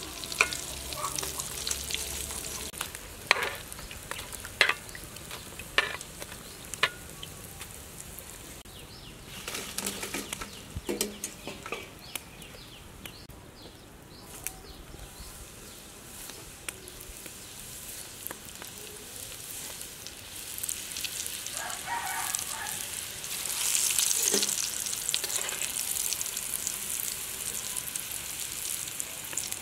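Wontons deep-frying in hot oil: a steady sizzle of bubbling oil, with sharp metal clinks from a wire strainer and fork against the pan and colander in the first half. The sizzle grows louder about three-quarters of the way through.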